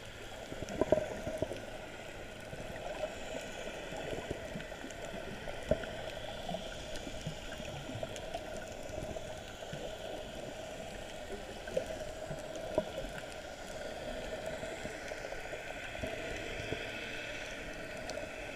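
Water heard underwater from just below the surface: a steady muffled gurgling and sloshing with a steady hum beneath it, broken by occasional sharp knocks, the loudest about a second in.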